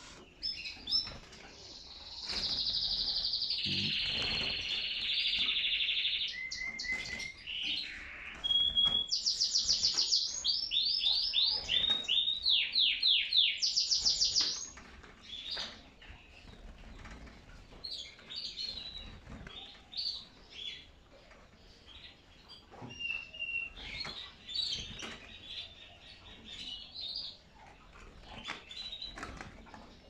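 Domestic canaries in a cage: one sings a loud song of rolling trills and fast repeated notes from about two seconds in until about fourteen seconds in. After that the birds carry on with softer chirps and calls and scattered small clicks.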